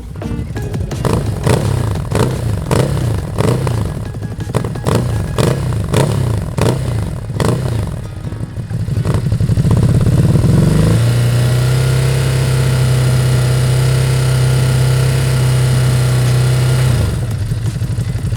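Ducati Hypermotard 950's L-twin engine through Austin Racing slip-on silencers, blipped up and down repeatedly. About ten seconds in it climbs and holds steady at high revs for about six seconds, then drops back near the end.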